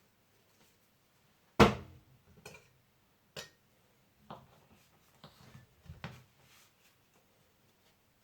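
Knocks and clatter of kitchen work on a worktop: one loud knock about one and a half seconds in, several lighter clicks and knocks after it, and another loud knock at the very end.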